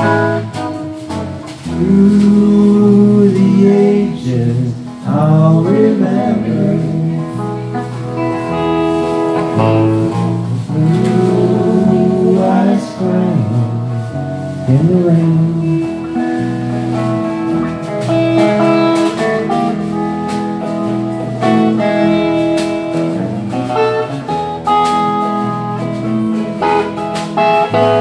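Live band playing an instrumental break of a slow country song on electric guitars and drums, with a lead line of long held notes that slide between pitches several times.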